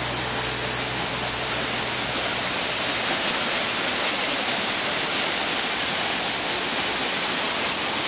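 Steady, even rushing hiss of a waterfall pouring over rocks, cutting off suddenly at the very end.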